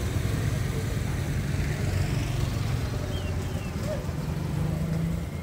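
A vehicle engine running with a steady low hum over a low rumble.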